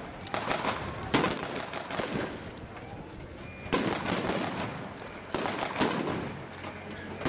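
Blank gunfire from reenactors' weapons: about eight single shots at uneven intervals, each trailing off in echo.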